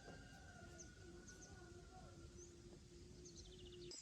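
Near silence: faint outdoor rural ambience with a few faint, high bird chirps, a quick run of them near the end.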